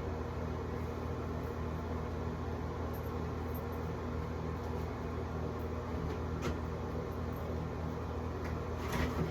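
Portable washing machine's spin dryer running with a steady, fairly quiet motor hum as it spins water out of a load with jeans. A couple of light clicks come in the second half.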